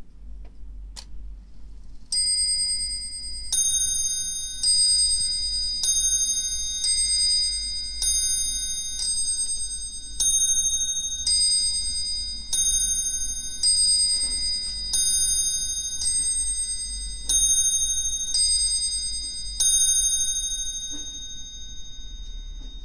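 Antique French cartel clock striking the hour on its bell: about a dozen slow, evenly spaced strikes a little over a second apart, each ringing on and fading before the next. A couple of faint clicks come first, before the striking begins.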